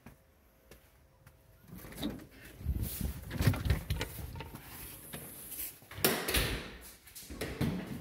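A glass storm door and the front door behind it being opened by hand: a run of handle and latch clicks, knocks and rattles, with a sharp click about six seconds in.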